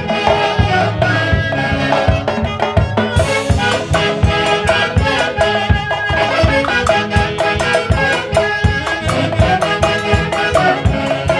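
A Peruvian orquesta playing an upbeat Andean dance tune live, with a steady rhythmic beat, shaken percussion and horns.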